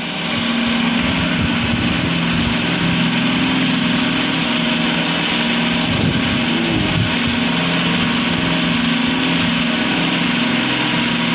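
Jumbo cotton candy machine with a cast furnace running, its motor spinning the head with a steady hum over an even rushing noise as it makes floss.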